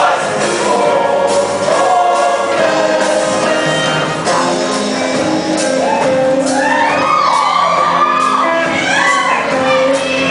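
Show choir singing with instrumental backing; from about six seconds in, a solo voice sings curving, melismatic runs above the ensemble.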